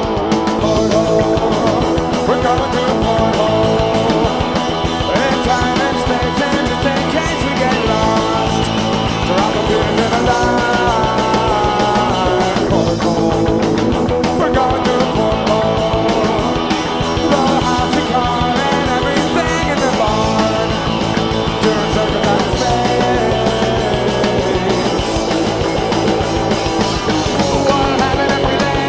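Live indie rock band playing a song, electric guitars over a steady bass line, loud and continuous.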